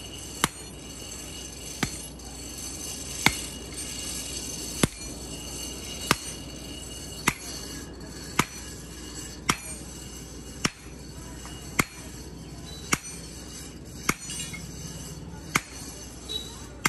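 Sledgehammer blows on red-hot iron held on an anvil block, hand-forging a blade: sharp metallic strikes in a steady rhythm of about one a second.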